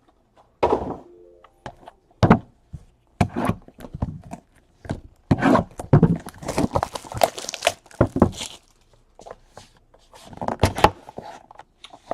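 Trading cards and their packaging being handled: irregular rustling, sliding and light knocks as cards are opened and sorted.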